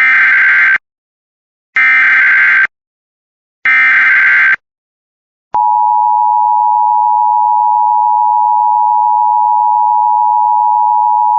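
Emergency Alert System SAME header: three short bursts of screeching digital data tones, about a second apart. About five and a half seconds in, the steady two-tone EAS attention signal (853 and 960 Hz sounding together) starts and holds, announcing a new alert.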